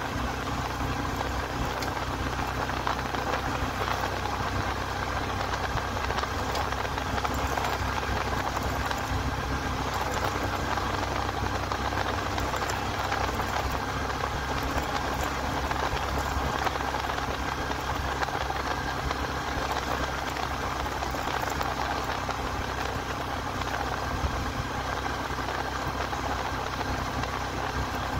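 Single-cylinder engine of a Bajaj commuter motorcycle running steadily at cruising speed, heard from the rider's seat under a steady rush of wind and road noise.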